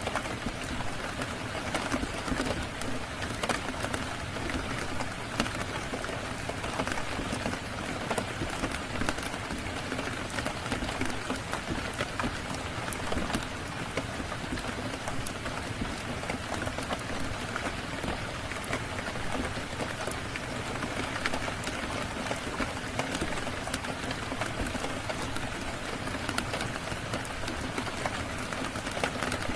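Steady rain falling, mixed with a crackling fire that gives many small sharp pops throughout.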